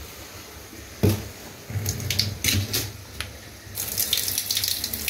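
A knock and a few clatters of pots, then water gushing into a kitchen sink from about four seconds in, as parboiled basmati rice is drained.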